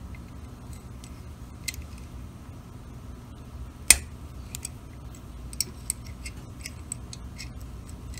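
Small scattered clicks and ticks of a screwdriver working the screws out of a Harley-Davidson Milwaukee-Eight timing cover, metal on metal, with one sharper click about four seconds in, over a steady low hum.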